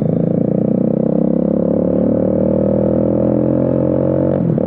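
Bajaj Dominar 400's single-cylinder engine running through an aftermarket Akrapovic exhaust with the catalytic converter removed, free-flowing, while the bike is ridden. The engine note rises slowly under light throttle and breaks briefly near the end.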